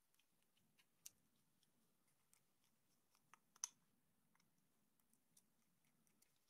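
Near silence broken by faint clicks and taps of small hardware being handled: a metal linear bearing and a small screwdriver against a drilled acrylic plate, with one sharper click a little past the middle.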